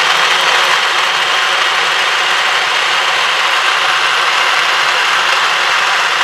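Smartek mini sewing machine's small electric motor running steadily, winding thread onto the bobbin.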